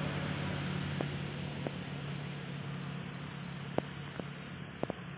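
Distant traffic: a low vehicle hum over a steady outdoor wash of noise, slowly fading, with a few scattered sharp ticks.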